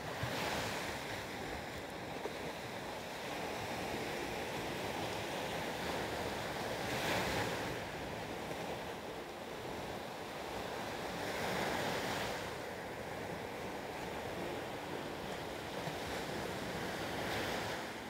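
Sea waves breaking and washing up a dark sand beach among rocks: a continuous hiss of surf that swells four times as successive breakers come in and foam runs up the shore.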